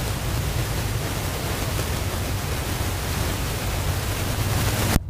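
Steady rushing noise of wind blowing over the camera's microphone, filling the whole range from low rumble to high hiss, that cuts off abruptly near the end.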